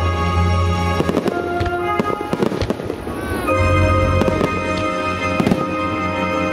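Aerial firework shells bursting in a rapid string of sharp bangs over loud music. The music's bass drops away for a couple of seconds in the middle while the bangs keep coming, then returns heavily about three and a half seconds in.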